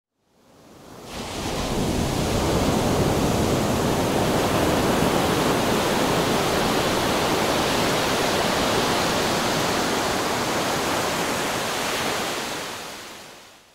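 A steady rushing noise, like surf or rushing air, used as a sound effect under an animated logo. It fades in over the first second or two, holds evenly with no swell of separate waves, and fades out near the end.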